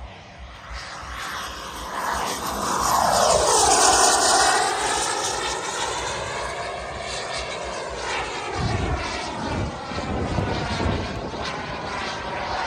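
JetCat 180 turbine of a large RC model jet flying past: a turbine whine with a rush of jet noise that swells to its loudest about four seconds in, the pitch falling as it goes by. It then carries on at a lower level with further rising and falling pitch sweeps as the jet keeps flying.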